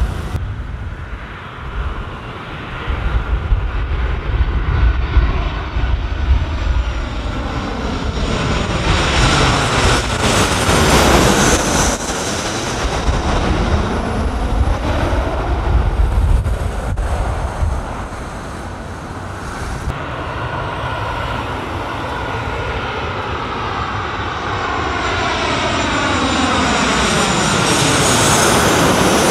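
Jet airliners on final approach passing low overhead, one after the other. The engine roar swells to a peak with a sweeping, phasing whoosh as the first passes about ten seconds in, eases off, then builds again as a second comes over near the end.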